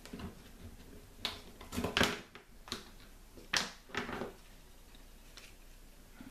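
Plastic spring clamp being handled on a plastic cutting board: a handful of short, scattered clicks and knocks with quiet between.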